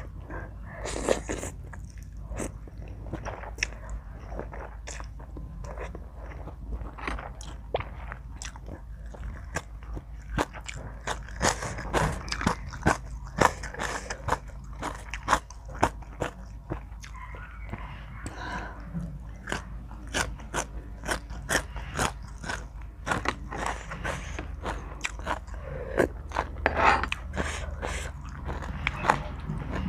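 Close-miked eating: a person chewing and biting into a spicy Thai seafood salad, with many quick, irregular crunches, clicks and mouth smacks over a steady low hum.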